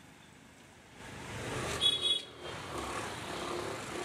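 Outdoor street ambience with traffic noise. A brief high-pitched toot stands out just before the middle and is the loudest moment.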